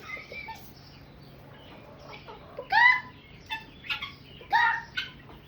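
Chickens calling: two loud, drawn-out squawks that rise and then fall in pitch, about three seconds in and again about a second and a half later, among shorter, softer clucks.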